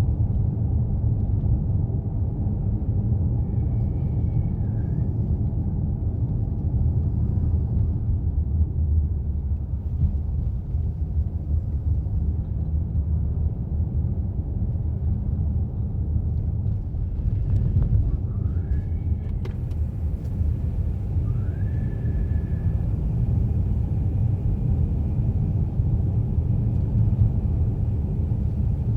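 Steady road and engine rumble heard from inside a moving car's cabin, with a few faint short squeaks.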